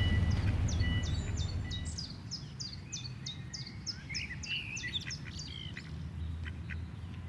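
Songbirds singing in a garden: a quick run of repeated high chirping notes, about four a second, with a few lower notes mixed in. A low rumble fades out during the first two seconds.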